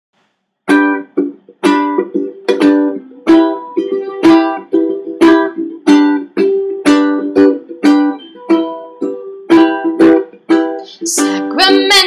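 Music: a strummed string instrument playing chords in a steady rhythm, about two strums a second. It starts just under a second in.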